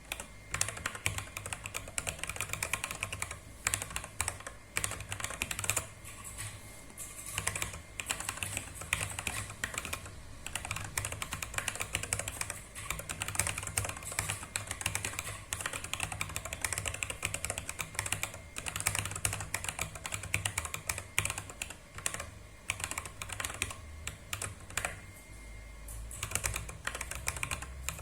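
Fast, continuous typing on a compact 30-key mechanical keyboard, the keys clacking in quick runs with a few short pauses.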